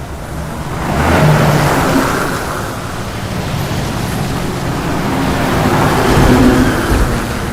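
Highway traffic passing close by the roadside, with a steady low rumble of engines and tyres. One vehicle sweeps past about a second in, and another builds and passes near the end.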